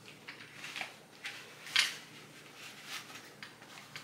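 Rustling and scuffing of hands working at the underarm pad on top of a crutch: a few short scrapes, the loudest a little before the middle.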